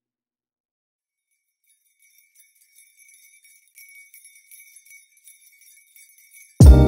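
Background music track between songs: near silence, then a faint, high, bell-like tinkling. Loud music with a heavy beat cuts in suddenly near the end.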